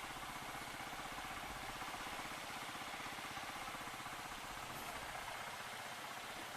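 Rusi KR125 motorcycle engine running steadily at idle with an even, rapid chugging.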